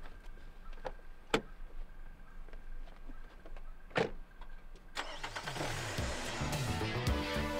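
A car door latch clicks open and the sedan's door shuts with a solid thud about four seconds in as someone gets into the driver's seat. Guitar-driven rock music then starts and builds.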